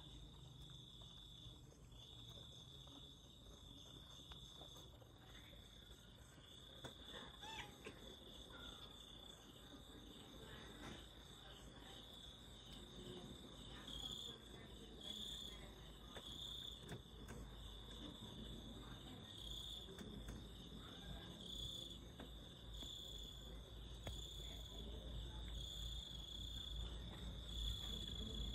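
Faint insects trilling steadily in one high note, the trill swelling in short pulses every second or so in the second half, over a low rumble.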